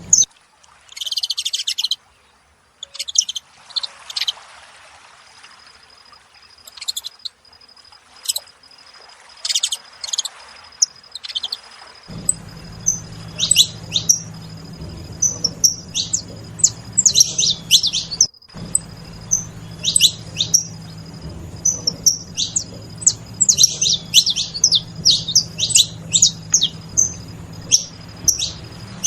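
Saffron finches calling, a busy run of short, sharp chirps that grows denser in the second half.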